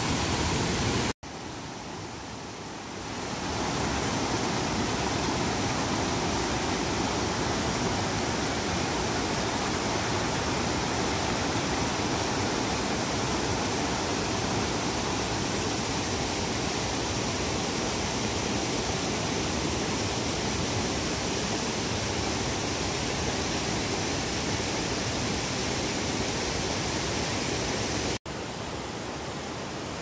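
Rain-swollen mountain stream of muddy floodwater rushing over rocks, a steady, even rush of water. It cuts out for an instant about a second in and again near the end, coming back quieter for a couple of seconds each time.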